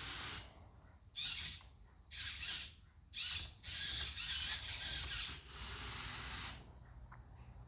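Small geared DC motors of a block-built robot dog whirring in about six short bursts, each half a second to a second and a half long, with brief pauses between, as the robot moves.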